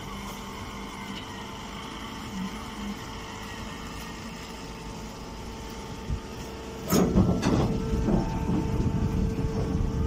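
Mini grass baler's motor and pump humming steadily with a few constant whining tones. About seven seconds in, two sharp cracks are followed by a louder rough, clattering noise that keeps on.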